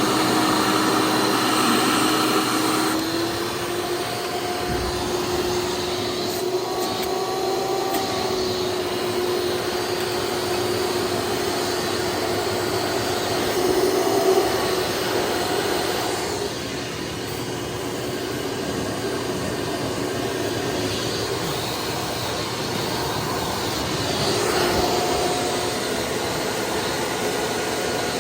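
1995 Hoover Encore Supreme hard-bag upright vacuum running steadily, fitted with a twenty-blade replacement fan: an even rush of air with a steady motor whine whose pitch steps up slightly about three seconds in.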